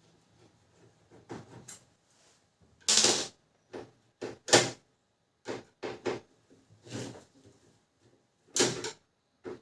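Plastic parts of a laser printer being handled and unclipped during disassembly: irregular clicks and knocks, about ten in all, the loudest about three seconds in and again about four and a half seconds in.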